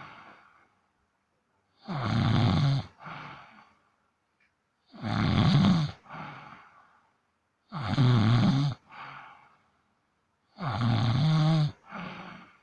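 A 17-day-old newborn baby snoring in its sleep: four loud snores about every three seconds, each followed by a shorter, softer breath.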